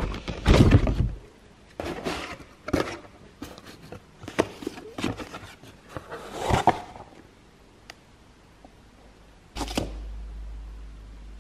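Cardboard box and packaging being handled: irregular rustling, scraping and soft knocks as papers and a sticker are lifted out and the box is moved. Near the end a single knock is followed by a low steady hum.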